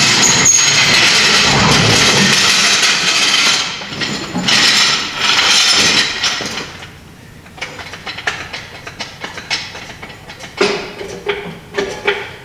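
Loud rolling, rattling metal clatter for the first few seconds and again briefly a little later, easing into scattered clanks and ticks near the end.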